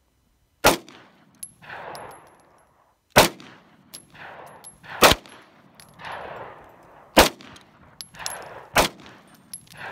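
Five single shots from a Springfield XD9 9mm pistol, fired slowly about two seconds apart, each sharp crack followed by a rolling echo that fades over about a second.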